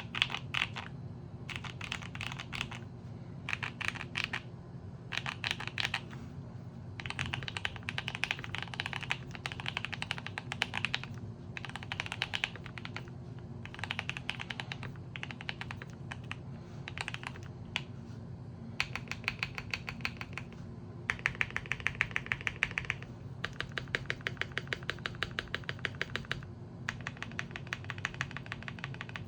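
Typing on a Keychron Q1 v2 aluminium mechanical keyboard fitted with lubed Gateron Azure Dragon switches and GMK Striker clone keycaps. It comes in bursts of keystrokes separated by short pauses, with long, quick, evenly spaced runs of strokes in the second half. A steady low hum sits underneath.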